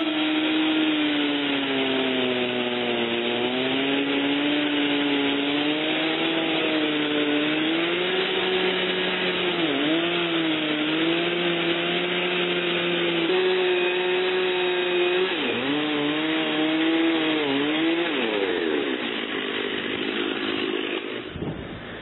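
Chainsaw in an Alaskan chainsaw mill ripping lengthwise through a cedar log, its engine running steadily under load with the pitch sagging and recovering as the cut loads it. Near the end the engine speed falls away and the sound drops off as the first cut finishes.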